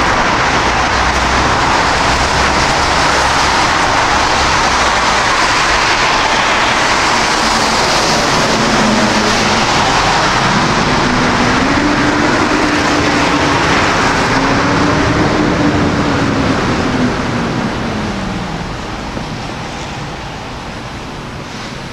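Street traffic: a vehicle going by close, a loud rushing noise with a low engine note that dips and rises in the middle, then fading away over the last few seconds.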